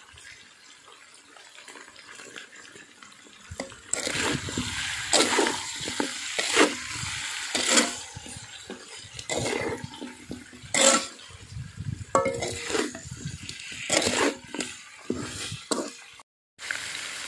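Metal spatula scraping and knocking against a large aluminium wok while chicken pieces with lemongrass are stir-fried. The strokes are irregular, about one a second, starting a few seconds in.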